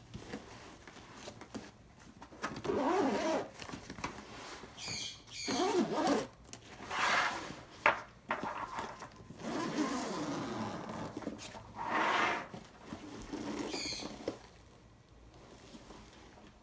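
Zipper on an Alienware Vindicator 2.0 laptop backpack being pulled along its track in about six separate strokes of half a second to a second and a half each, with the bag's fabric rustling as it is handled.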